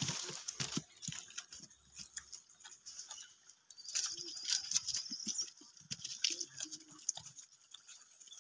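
A troop of gray langurs crowding, grabbing and eating tomatoes: scattered quick clicks and rustles, with a few short low sounds in the middle.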